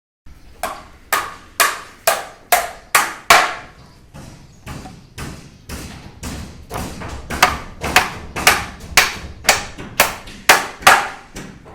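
Steady hammering on a building site, sharp blows about two a second, each with a short ring. The blows go softer for a couple of seconds in the middle, then come hard again.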